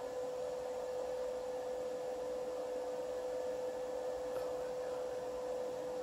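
HP desktop PC's cooling fan, which the owner takes for the CPU fan, running at high speed: a steady loud buzzing drone with one even mid-pitched tone over a soft hiss, a fan running far louder than normal.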